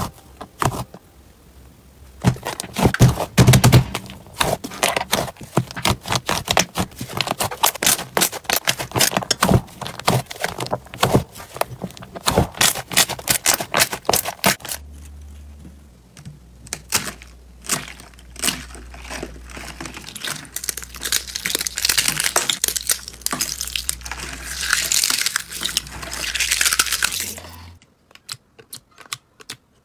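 Hands pressing and squeezing slime in a bowl: rapid sticky pops and crackles. A low steady hum lies under them in the second half, and it goes nearly quiet near the end.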